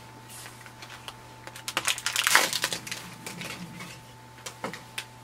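Ink cartridge packaging being opened by hand: the cardboard box and wrapper crackle and tear in a run of irregular clicks and rustles, densest about two to three seconds in.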